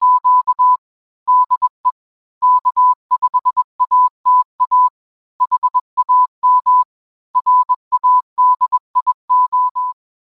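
Morse code sent as a steady tone of about 1 kHz, an irregular string of short and long beeps that stops near the end.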